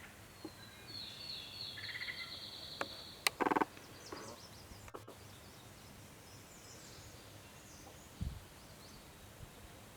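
Marsh birdsong: a buzzy high trill lasting about a second and a half, then a click and a short low call about a third of the way through, with faint high chirps later and a low thump near the end.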